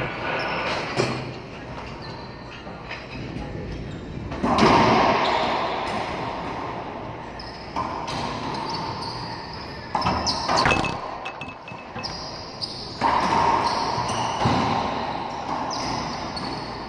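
Racquetball rally: the ball cracks off racquets and the court walls about seven times at irregular intervals, each hit echoing loudly around the enclosed court.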